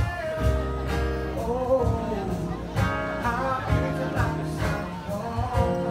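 Music: a song with a singing voice over strummed acoustic guitar.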